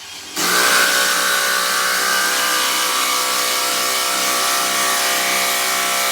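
A 12-volt cordless impact driver hammering steadily as it drives a large fastener into wood. It kicks in abruptly about half a second in and keeps up an even, rapid rattle.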